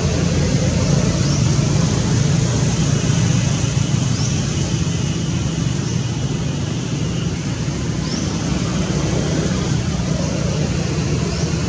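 A steady low rumble with a hiss over it, and a few faint, short, high chirps scattered through it.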